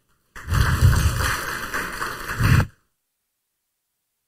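Congregation applauding for about two seconds, then cut off suddenly.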